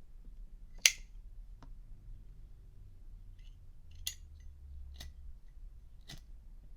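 A vintage 1960 Zippo Slim windproof lighter being opened and struck to test its lighting after the wick was repositioned. There is a loud sharp metal click about a second in and a faint one just after, then three more clicks about a second apart.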